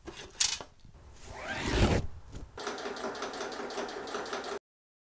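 Electric household sewing machine running steadily for about two seconds, then cutting off suddenly. Before it come a sharp click and a short sound rising in pitch.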